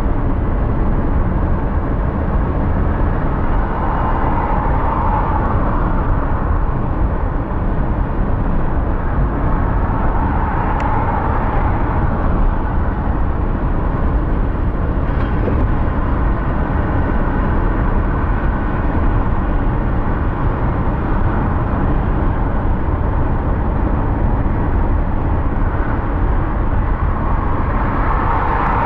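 Steady road noise from a car driving on city streets: a deep rumble with tyre hiss above it, swelling a few times.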